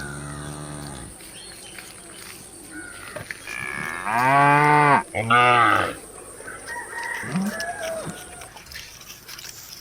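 Cow mooing: a call trailing off about a second in, then a loud two-part moo that rises and falls in pitch, from about four to six seconds in. Fainter animal calls follow near the end.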